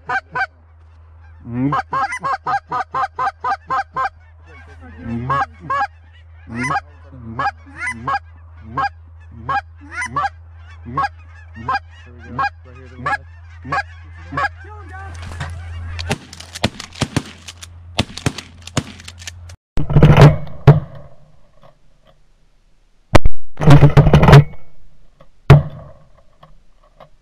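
Goose calling, with rapid runs of clucks and then steady single honks, as a flock of geese is worked into the decoys. Then a volley of shotgun blasts about twenty seconds in, a second volley a few seconds later, and one last shot.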